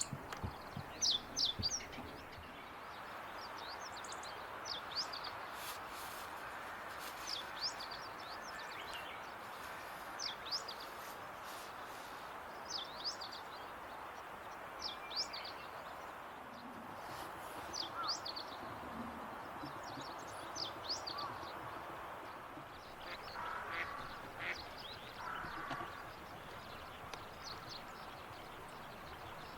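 Small wild birds chirping: many short, sharp, high calls scattered throughout, over a steady background hiss. A few lower calls come about four-fifths of the way through.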